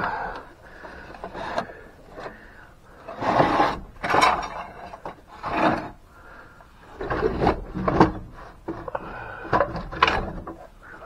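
A metal tin box and junk being dragged and shifted on rough wooden shelves by a gloved hand: scraping and clunking in several irregular bursts.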